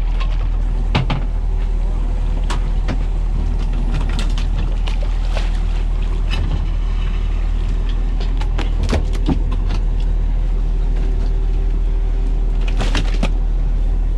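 A fishing boat's engine running steadily with a deep hum, with scattered sharp knocks and clicks over it from gear being handled on deck.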